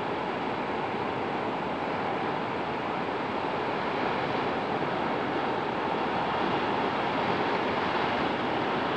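Sea surf breaking over coastal rocks: a steady, continuous wash of waves, growing slightly louder about halfway through.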